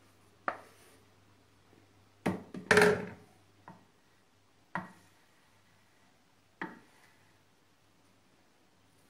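Kitchen utensil knocks: a wooden spoon and a plastic mixing bowl tapping against a glass baking dish and a stone counter as thick cake batter is scraped out and spread. A handful of separate knocks, with a longer, louder clatter between about two and three seconds in.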